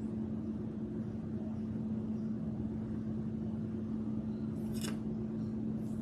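Steady low hum of background room noise, with a single brief tap about five seconds in as the foam brush is set down on the plastic paint tray.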